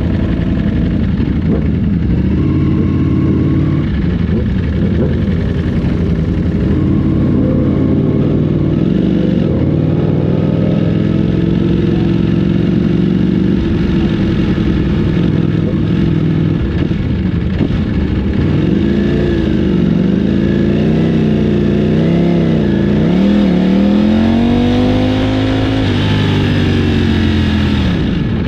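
Ducati Panigale V4's V4 engine running through a Termignoni race slip-on exhaust, idling steadily at first, then revved in a series of throttle blips that rise and fall in pitch over the last ten seconds.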